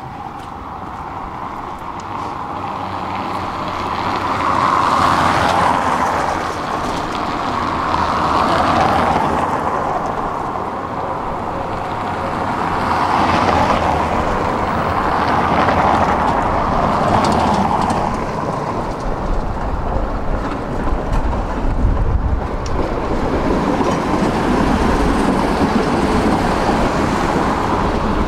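Tram running along its rails, heard from on board: wheel and track noise that grows louder over the first few seconds, then swells and eases several times, with a deeper rumble joining in over the last third.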